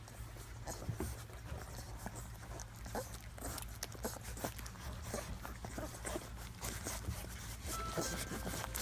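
Two-week-old Fila Brasileiro–English Mastiff hybrid puppies suckling: a busy, irregular patter of small wet clicks and smacks from many mouths at the teats.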